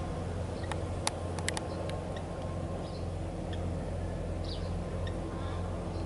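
Kubota L4508 tractor's diesel engine running steadily, faint and still some way off, as it tills a flooded rice paddy on cage wheels. A few short sharp clicks about a second in.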